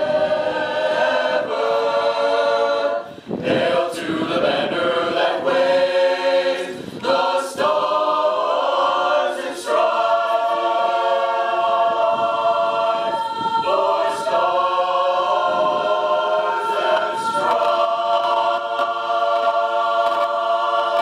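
Mixed choir of women's and men's voices singing a cappella in harmony, with short breaks between phrases and a long chord held through the second half.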